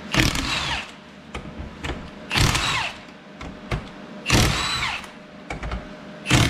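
Cordless electric impact wrench run in four short bursts about two seconds apart, each under a second with a whine that rises and falls. It is spinning out the left-hand-thread ring gear bolts from a differential carrier.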